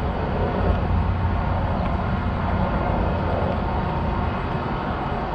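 Jet kayak's motor running steadily while the kayak moves across the water.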